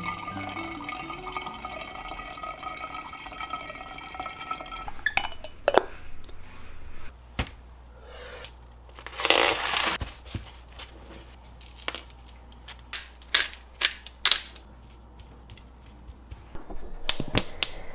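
Kitchen handling sounds on a countertop: sharp clicks and taps as a steak in a foam tray is unwrapped and seasoned, with one loud crinkling stretch about halfway through. A faint steady tone fades out in the first few seconds.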